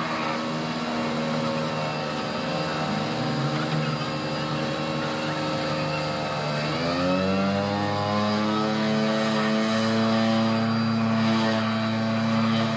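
Heavy excavators fitted for pile work, running with a steady mechanical drone. About seven seconds in, the pitch dips and then climbs to a higher, louder drone as the machinery comes under load.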